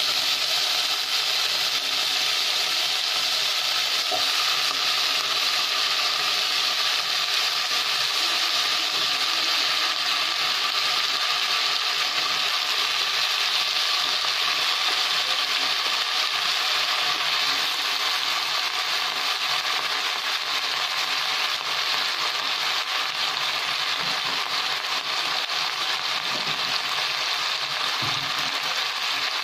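Vegetables sautéing in a pot, a steady frying sizzle as they are stirred with a wooden spatula.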